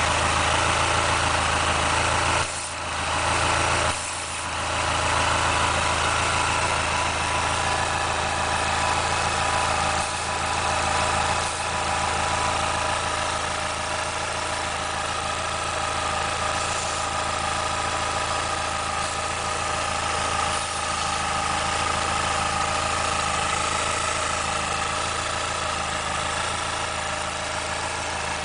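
Dodge Neon SRT-4's turbocharged 2.4-litre four-cylinder engine idling steadily while it is checked for vacuum leaks, with two short dips in level a few seconds in.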